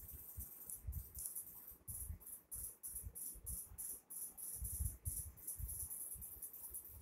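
Faint background noise: a fluctuating high hiss with irregular low thuds and rumbles, no voice.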